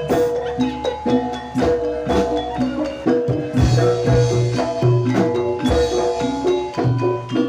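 Jaranan Dor ensemble music: a quick run of struck metal-keyed percussion notes over drums, played without a break.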